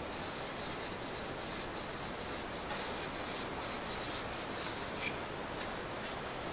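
Cloth rag rubbing over a wooden rifle stock, wiping off excess finish in soft, repeated strokes.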